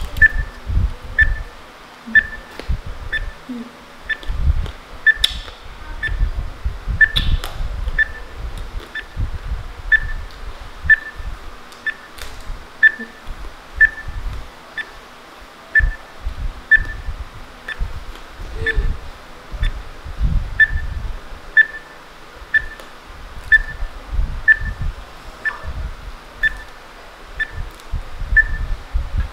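Countdown timer ticking: a short, high tick repeating evenly about every two-thirds of a second, over irregular low thumps.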